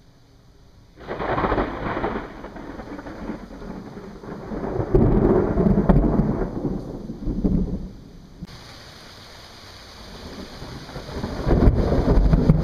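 Thunder rolling: a long rumble sets in suddenly about a second in, swells and dies away, and a second loud rumble builds near the end.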